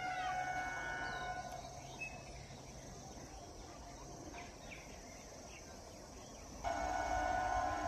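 Rural outdoor ambience with short bird chirps and a faint steady insect drone. About six and a half seconds in, a louder steady chord of several tones cuts in abruptly.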